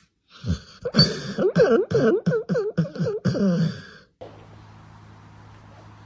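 A cat giving a rapid run of short, rough meows for about three seconds; then it cuts off suddenly, leaving a low steady hum.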